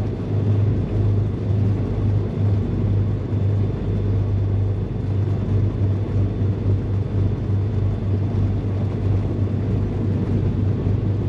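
Beechcraft G58 Baron's twin piston engines running steadily at taxi power, a constant low drone heard from inside the cockpit.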